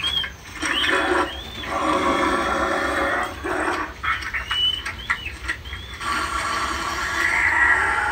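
Spirit Halloween Rick Ratman animatronic playing its sound effects through its built-in speaker while it moves: monstrous creature vocals in stretches of a second or two with short gaps, and short high squeaks.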